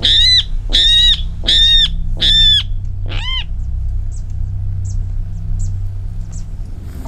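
Water rail calling: a series of five arched, squeal-like calls about 0.7 s apart, the fifth fainter. Faint short high notes from another small bird follow.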